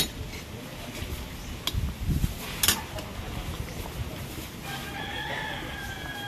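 A rooster crowing: one long call near the end. Before it, a few sharp clicks and low thumps.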